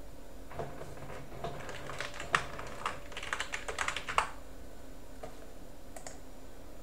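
Typing on a computer keyboard: a quick run of keystrokes lasting about three and a half seconds as a password is entered, followed by two single clicks a second apart.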